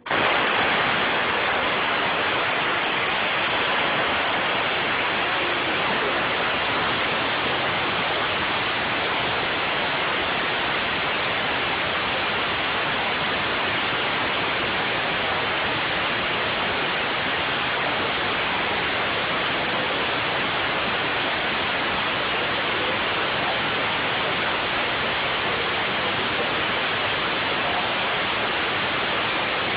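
Kinetrol vane-type pneumatic actuator stroking a butterfly valve closed: a steady hiss of compressed air exhausting through the four-way solenoid valve's adjustable exhaust, which is throttled to slow the full stroke to about 60 seconds. The hiss starts suddenly and stays even.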